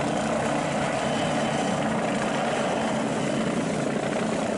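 Light helicopter flying low past, its rotor and turbine engine making a steady noise.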